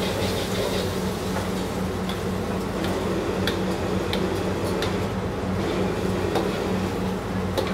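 Steady roar of a gas wok burner with a low hum underneath, while a steel ladle clinks against the wok a few times.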